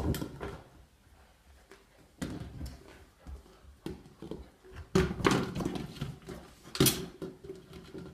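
Australian Shepherd playing with a plastic running water bottle wrapped in a neoprene handle: bursts of crunching and knocking about two, five and seven seconds in.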